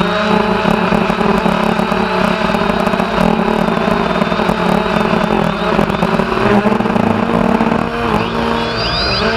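Quadcopter's electric motors and propellers whining steadily, picked up close by the camera mounted on the drone, with a few quick rising and falling glides in pitch near the end as the motors change speed.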